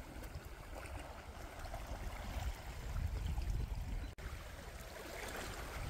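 Calm sea water lapping softly against shore rocks, a faint steady wash with a low rumble underneath. The sound cuts out for an instant a little after four seconds in.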